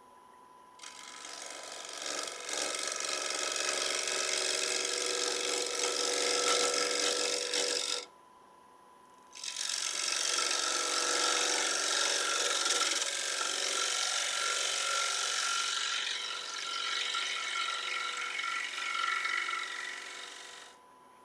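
Bowl gouge cutting the inside of a spinning sycamore bowl blank on a wood lathe, a dense scraping hiss of wood shavings coming off. The cut stops for about a second and a half around the middle, then carries on, and stops again near the end. A faint steady tone runs underneath.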